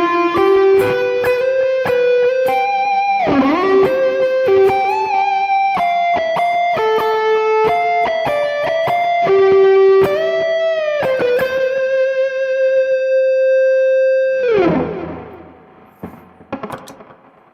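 Electric guitar on a high-gain lead tone, playing a single-note melody with string bends. It ends on a long sustained note that falls steeply in pitch about fourteen and a half seconds in and fades out, with a few faint string noises afterwards.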